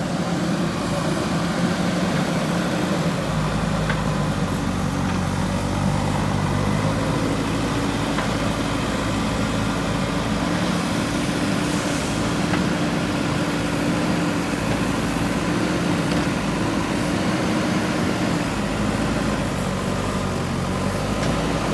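Backhoe loader's diesel engine running steadily, its note shifting in pitch a few times as the machine works.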